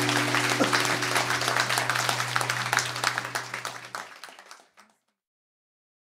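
The final held chord of a folk song recording rings out, its upper notes stopping about a second and a half in and the low note at about four seconds. Audience applause runs under it and fades away to silence about five seconds in.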